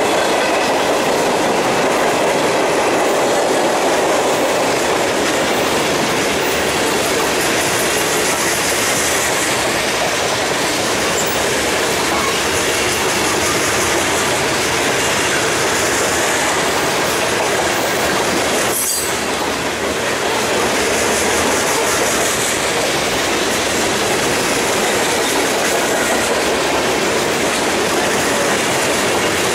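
A mixed freight train's cars rolling past at speed: a steady rumble and clatter of steel wheels on the rails, with a high wheel squeal that comes and goes.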